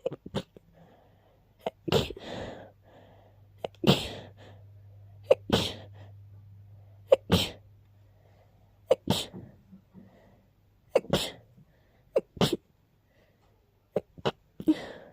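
A person sneezing in a fit, about eight sneezes in a row, each a second or two apart.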